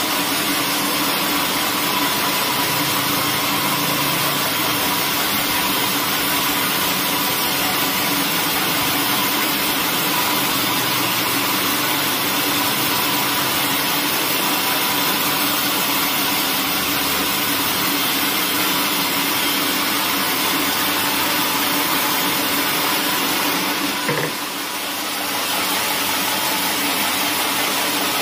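Large vertical band saw ripping a thick hardwood slab: a loud, steady noise of the blade cutting through the wood, with a faint steady hum under it. Near the end the sound briefly drops and changes, then carries on.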